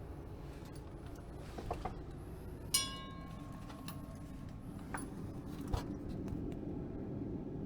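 A sharp clink about three seconds in that rings on as a clear tone for a little over a second, with a few light knocks around it over a low, steady background rumble.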